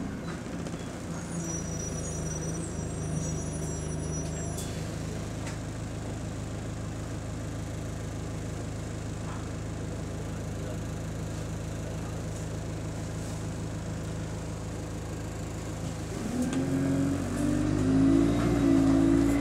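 Alexander Dennis Enviro200 (E20D) bus's Euro 5 diesel engine running at a raised high idle, heard from inside the saloon, with a faint high tone and a single knock a few seconds in. About sixteen seconds in the engine note rises and grows louder as the bus pulls away on its Allison automatic gearbox.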